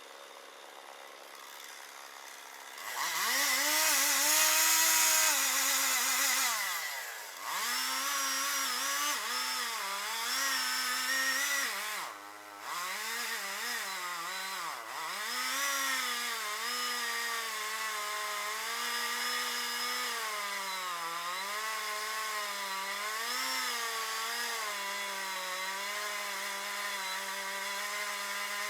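Chainsaw engine running at low speed, then revved hard about three seconds in. Its pitch then sags and recovers again and again as it cuts through a log, with a brief drop just after twelve seconds.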